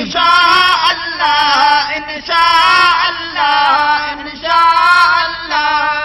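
A devotional song about Madina: one voice singing long wavering, ornamented phrases, each about a second long with short breaks between them.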